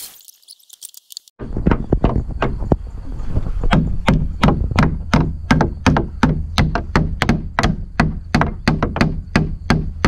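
Repeated blows of a hammer on wood, a steady run of sharp knocks about three a second, starting about a second and a half in, over a steady low rumble.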